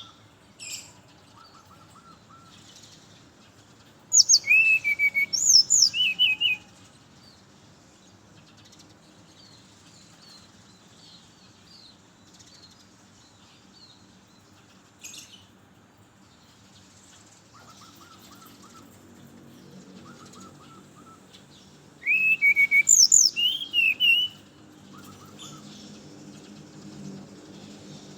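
Brown-chested jungle flycatcher singing: two phrases of clear, quickly sliding whistled notes, each about two and a half seconds long, one about four seconds in and one near the end. Fainter chirps come between the phrases.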